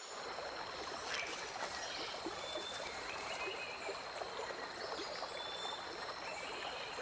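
Ambient river and rainforest sound: a steady wash of trickling, lapping water full of small ticks, with a few short high chirps over a thin steady high tone.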